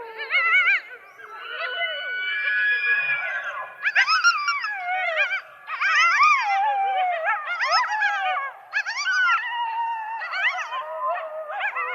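A pack of coyotes howling and yipping, several voices overlapping: quavering, warbling calls in bursts, with long held howls and falling yips, breaking off briefly twice.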